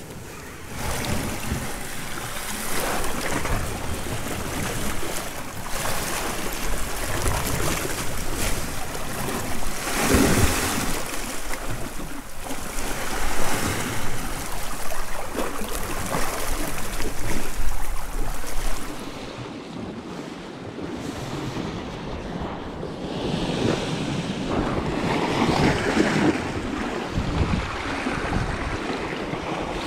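Sea swell surging and washing against shoreline rocks in repeated waves, with wind buffeting the microphone.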